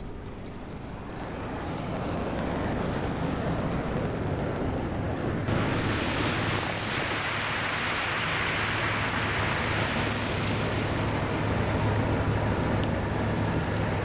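Steady low drone of a passing, fully loaded river cargo ship, with the wash of its wake surging onto the shore. The wash swells about a second and a half in and grows brighter about five seconds in.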